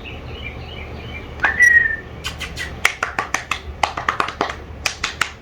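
A short whistle, then a quick run of sharp clicks, about three or four a second: distraction noises made to draw a young dog's attention during training.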